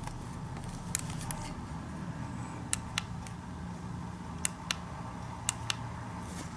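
Push-button switch of a rechargeable LED headlamp clicked repeatedly, cycling its light modes: about nine sharp clicks, several in quick pairs, over a low steady hum.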